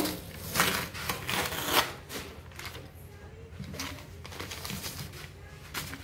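Newspaper masking rustling and crinkling as it is handled, in several short bursts, loudest in the first two seconds.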